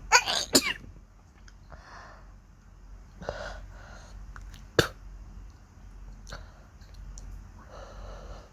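A person sneezing hard, a loud two-part burst right at the start, followed by softer breaths and sniffles. A sharp click comes about five seconds in.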